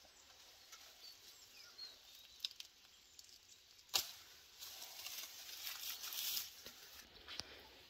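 Pomegranate tree leaves and twigs rustling as a pomegranate is twisted off its branch, with a sharp snap about four seconds in, then a longer rustle of leaves and branches.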